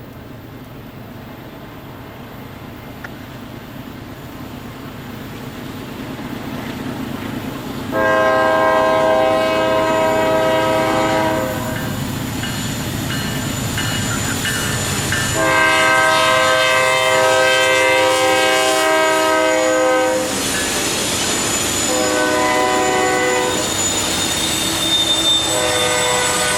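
Diesel freight locomotive approaching with a rumble that grows louder, then sounding its multi-chime air horn in the grade-crossing pattern: two long blasts, one short, then a long one that starts near the end.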